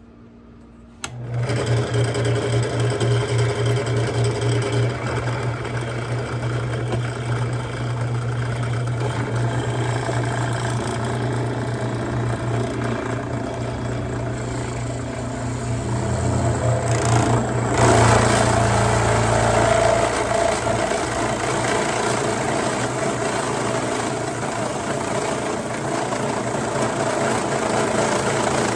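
Electric drill running under load as it bores a hole, starting about a second in with a steady low motor hum. It gets louder and shifts in pitch around two-thirds of the way through.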